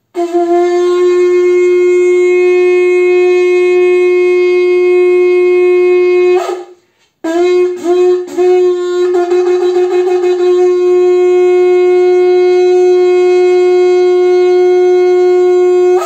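Small 40 cm antelope-horn shofar blown in two long, steady blasts on the same low note. The first ends in an upward crack about six seconds in; after a short pause the second starts with a few short, broken attempts before it settles into a held note.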